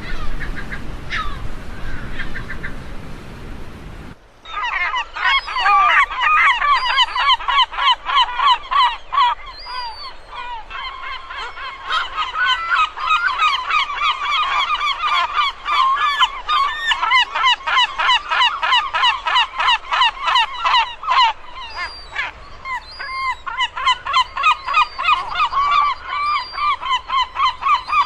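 A few scattered bird calls over outdoor background noise, then about four seconds in a dense chorus of many birds calling cuts in suddenly, with loud, rapid, repeated calls several a second that keep going.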